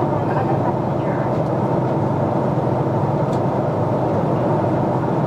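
Steady roar of a jet airliner's engines and airflow heard inside the passenger cabin in flight.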